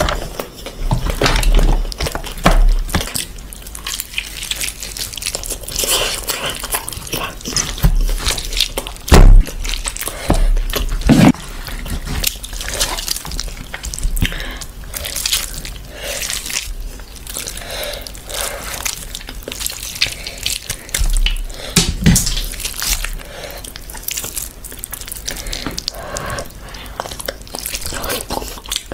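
Close-miked eating sounds: wet squelching of hands squeezing oily biryani rice and pulling mutton from the bone, with chewing and lip smacks. A steady string of sharp wet clicks, with a couple of louder knocks about a third of the way in.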